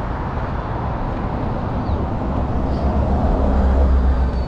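Road traffic going by, with one vehicle's low engine rumble growing louder and at its loudest about three to four seconds in.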